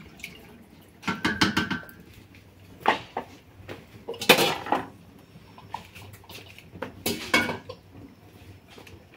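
Cooking pots and utensils clinking and clattering in about four short bursts, the loudest about four and a half seconds in.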